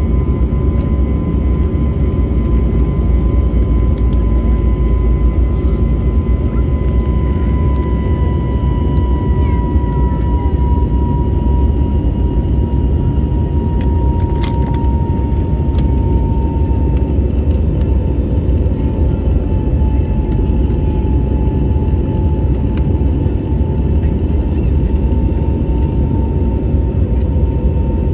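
Jet airliner cabin noise during the climb: a loud, steady rumble from the turbofan engines and airflow, with a high engine whine that slowly drops a little in pitch. A brief click about halfway through.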